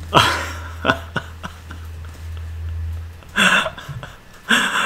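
A man's short, breathy bursts of laughter: one at the start and two more near the end, with a few light clicks in between and a low hum that stops about three seconds in.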